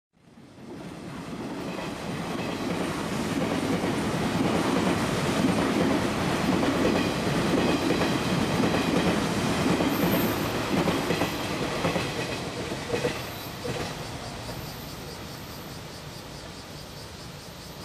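Night express passenger train passing at speed on the main line, its wheels clattering over the rail joints. It builds up over the first few seconds, is loudest in the middle, and fades away near the end.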